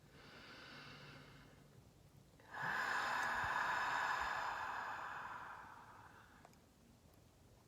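Breathy exhales voiced into the microphone as healing sounds: a soft breath at first, then a louder, long sighing exhale starting about two and a half seconds in that fades away over a few seconds.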